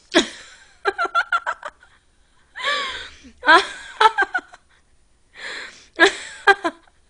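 A young woman laughing in three bouts of quick, repeated pulses, with breaths drawn in between.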